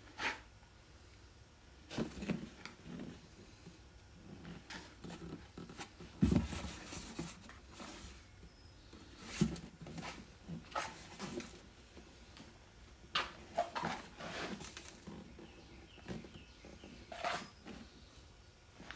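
Intermittent handling noises: scattered rustles, clicks and light knocks, with a dull thump about six seconds in.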